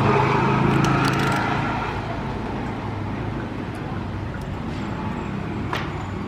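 Motor-vehicle traffic noise: a vehicle's engine drone is loudest in the first second or two, then gives way to a steady traffic hum with a few light clicks.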